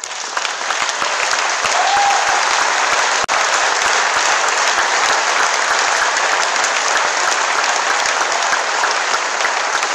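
Large audience applauding: a dense, loud round of clapping that breaks out all at once and keeps going without letting up.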